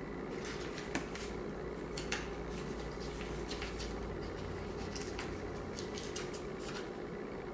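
Rustling and tapping of a paper documentation sleeve from an Apple box as it is opened and handled, with scattered light clicks and two sharper taps about one and two seconds in. A steady low hum runs underneath.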